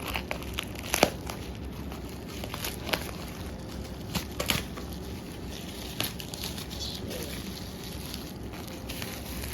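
Bubble wrap packaging being handled and pulled open, crinkling, with a few sharp crackles.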